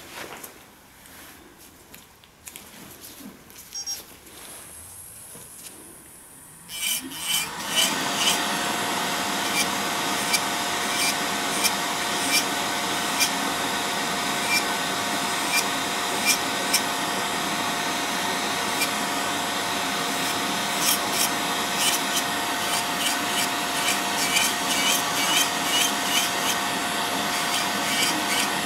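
Electric podiatry nail drill switching on about seven seconds in, after a few faint clicks. It then runs steadily with a constant whine as its bit grinds down thick, fungus-infected toenails, getting briefly louder now and then as it bites into the nail.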